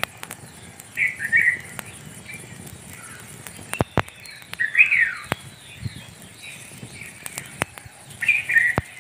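Wild birds calling: three short, loud chirping phrases, about a second in, around the middle and near the end. Between them, scattered sharp ticks and pops from a small fire of dry pine needles catching.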